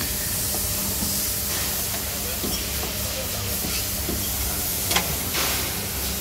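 Steady hissing background noise of a repair shop, with a low hum under it and a single sharp click about five seconds in.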